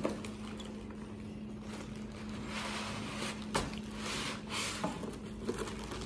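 A cardboard box and its foam packing being handled: rustling and scraping as the foam blocks holding a tire inflator are pulled out, with a couple of sharp knocks.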